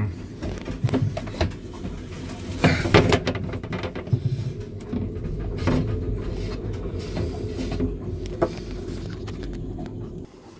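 Scattered knocks, bumps and rustles of hands and a phone moving against boards and surfaces in a cramped compartment, busiest about three seconds in, over a faint steady hum.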